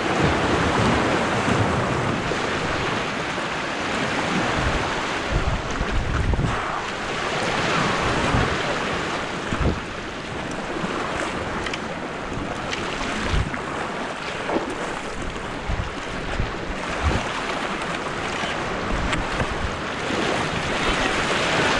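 Ocean surf washing and churning over the jetty rocks, a steady rushing wash. Wind buffets the microphone now and then with short low thumps.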